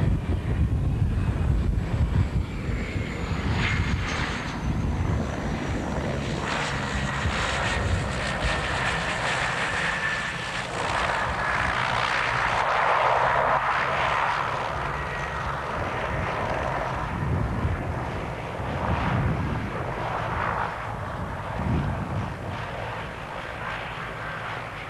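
de Havilland Canada DHC-6-300 Twin Otter's twin PT6A turboprop engines and propellers running, with a low rumble throughout and a faint whine that falls slowly in pitch over the first half. The sound swells around the middle and eases off toward the end.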